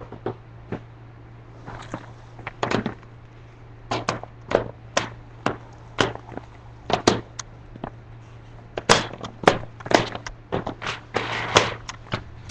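Quad roller skates on a concrete driveway: a string of sharp, irregular clacks and knocks, few at first and coming thick and fast from about nine seconds in, over a steady low hum.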